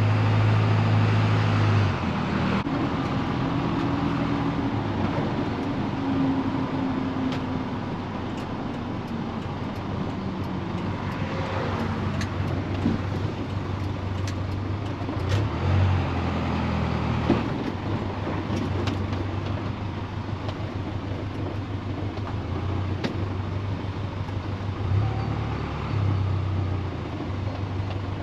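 A car or truck driving, heard from inside the cab: steady engine and road noise, with the engine note shifting a few times and scattered knocks and rattles over a bumpy road.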